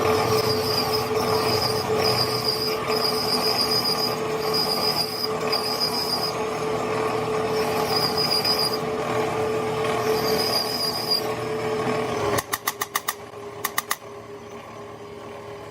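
An electric power tool running steadily, with a high squeal that comes and goes in stretches of about half a second to a second, stops suddenly about twelve seconds in. A quick run of sharp clicks follows, with a faint hum behind it.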